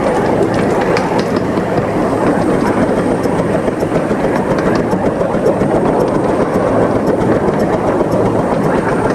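15-inch gauge miniature steam train, hauled by a Krupp 4-6-2 Pacific, running along the line: a steady rolling rumble with scattered clicks of the wheels over the rail joints.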